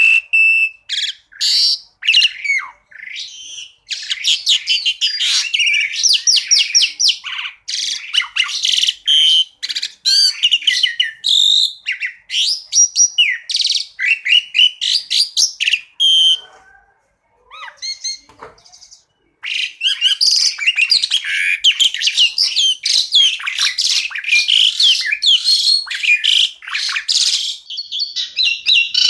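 Asian pied starling (jalak suren) singing a fast, varied song of loud chirps, rapid trills and whistled gliding notes. The song breaks off for a few seconds past the middle, where only a few faint lower notes sound.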